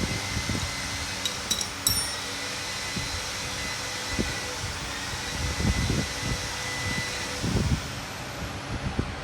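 Hand tools and metal engine parts being handled during connecting-rod removal: several dull knocks and a short metallic clink with a ringing overtone about one and a half to two seconds in, over a steady fan-like hum.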